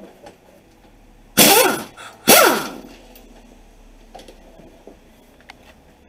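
A man coughing twice, loud and sudden, about a second apart. Faint clicks around them.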